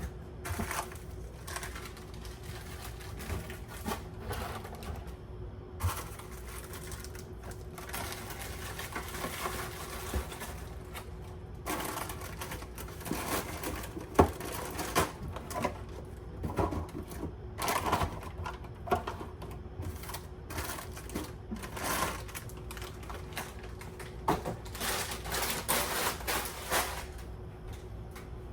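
Small items and packaging being handled: many light clicks, knocks and rustles, busier in a couple of stretches, over a faint steady hum.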